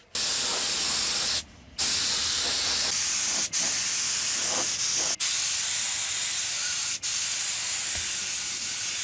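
Compressed-air paint spray gun with a cup beneath it, spraying with a loud, steady hiss. The trigger is let off once for a moment about a second and a half in, and then in brief breaks three more times.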